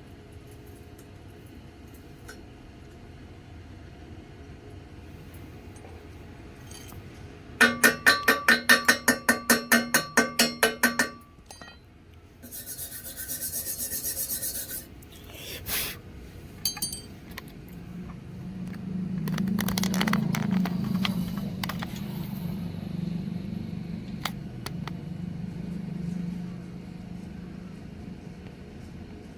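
Hammer rapidly striking steel, about five ringing blows a second for some three seconds. Then a burst of high-pitched scraping, a few clicks, and a steady low hum.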